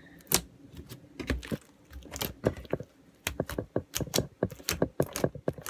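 Foam-bead slime (floam) being squeezed and kneaded by hand, the beads giving a run of sharp, irregular crackling clicks.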